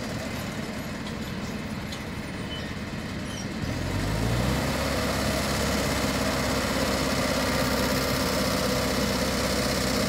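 Engine of a horse-drawn forage harvester chopping standing corn, running steadily. About four seconds in it revs up, rising in pitch, and then runs on steadily louder.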